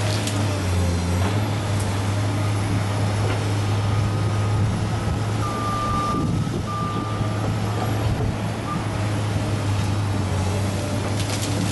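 Heavy diesel demolition machinery running with a steady low engine drone, while a reversing alarm beeps a couple of times midway.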